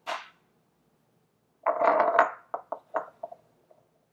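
A small wooden chopping board and a tiny ceramic saucer clattering together. One sharp knock comes first. About one and a half seconds later there is a short spell of scraping and clatter, then several light taps as minced garlic is pushed off the board into the saucer.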